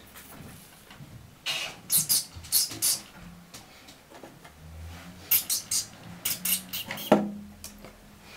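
Pet rat scrabbling at cardboard inside a toilet roll tube and shoebox: two runs of quick, scratchy bursts. A sharp knock about seven seconds in is the loudest sound.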